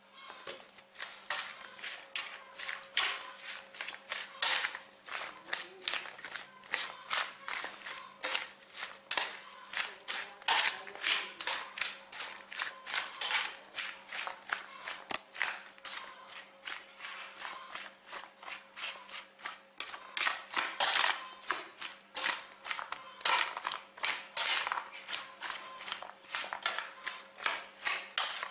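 A metal spoon stirring and tossing chopped cucumber and carrot in a stainless steel tray: repeated quick scraping strokes against the metal, a few a second.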